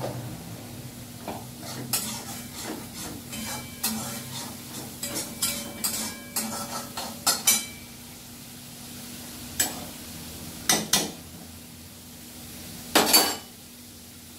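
A metal spoon scrapes and clinks against an aluminium pressure cooker and pan as boiled chickpeas are scooped out, with many short clinks, then a few more. Near the end there is a louder metal clatter as the cooker is handled.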